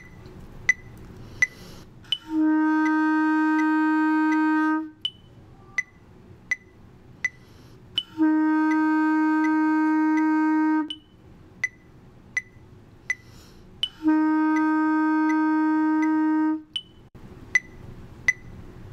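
Clarinet playing three long held F notes, each about two and a half seconds, separated by rests of similar length. A metronome ticks steadily through it, about 80 beats a minute, with a higher click on the first beat of each bar.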